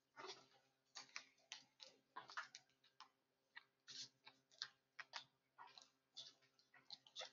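Faint, irregular clicks and taps, a few each second, in a quiet classroom while students work problems.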